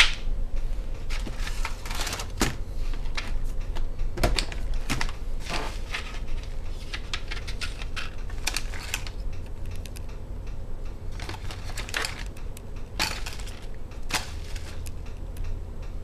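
Computer memory modules (RAM sticks) clicking and clattering against each other and their plastic tray as they are handled and sorted through by hand: a run of irregular light clicks with a few sharper knocks.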